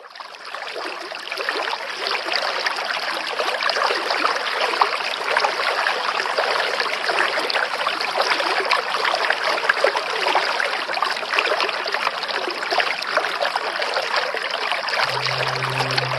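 Water running and splashing steadily, an even rushing sound.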